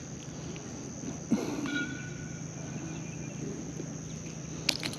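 A steady, high-pitched chorus of insects, crickets among them, with a sharp click about a second in followed by a brief tone, and a louder double click near the end.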